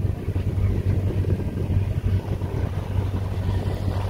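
Sailing yacht's inboard engine running steadily under power in a flat calm, a low even hum.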